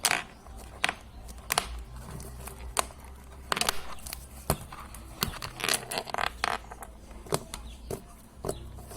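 Slime being squeezed and pulled apart by hand, giving irregular sharp clicks and crackles with a few longer squelching stretches.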